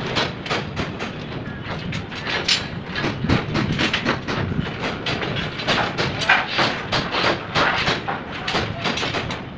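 Construction site work noise: rapid, irregular clattering and knocking over a steady rumble.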